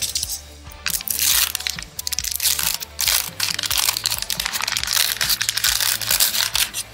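Wax-paper wrapper of a 1981 Donruss baseball card pack crinkling and tearing as it is peeled open by hand, dense crackling from about a second in, over background music.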